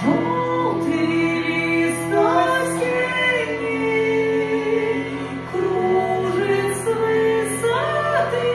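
A woman singing a slow melody over the steady drone of a hurdy-gurdy, its wheel-bowed strings sounding continuously beneath the voice.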